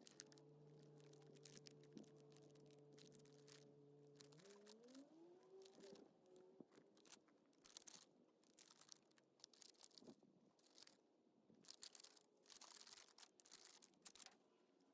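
Faint crinkling and crunching of small plastic pots and potting soil being handled, in quick scattered bursts through the second half. Before that, a faint steady hum that rises in pitch about four and a half seconds in.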